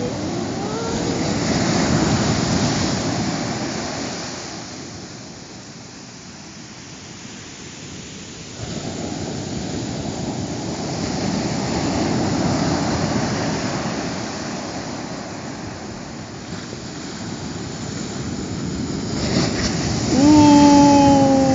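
Big ocean waves breaking on the shore: a rushing surf that swells and fades, with a sudden surge about a third of the way in. Near the end comes a loud held tone that falls slightly in pitch.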